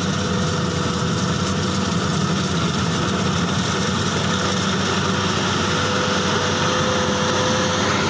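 Bimo 110 rice combine harvester running while it harvests rice: a steady, even engine drone with a thin constant whine above it.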